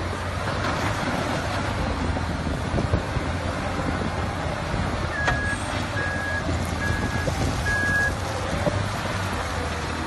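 LiuGong CLG856H wheel loader's diesel engine running steadily with a low hum while it works. Midway through, a reversing alarm beeps four times, a little under a second apart.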